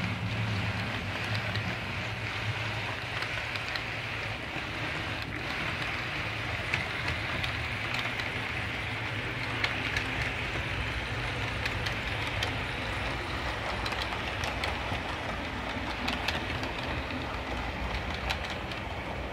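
Model trains running on a railway layout: a steady hiss and hum from the small electric motors and wheels on the track, with scattered faint clicks.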